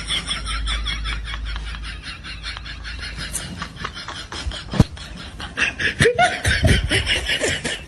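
Meme laughing sound effect: a long run of rapid, pulsing snickering laughter, with a sharp click about five seconds in.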